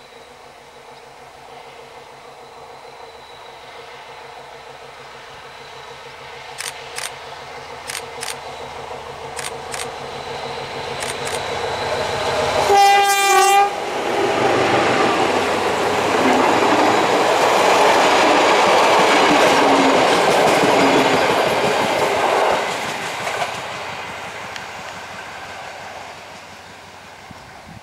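SM42 diesel locomotive hauling double-deck passenger coaches past: its engine grows louder as it approaches, with a few sharp clicks, then one horn blast about a second long a little before halfway. The passing train's engine and wheel noise follows, loudest for several seconds, then fades away.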